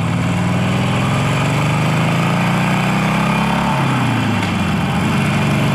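Harley-Davidson Sportster Roadster 1200's air-cooled V-twin running through its stock exhaust as the bike accelerates. The engine note rises steadily, drops sharply about two-thirds of the way through at an upshift, then climbs again.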